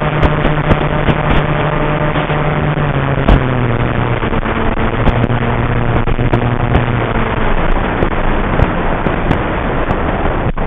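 FPV wing's electric motor and propeller droning under heavy wind buffeting on the microphone, with scattered sharp crackles. The drone's pitch steps down about three seconds in, and near the end the whole sound drops away abruptly.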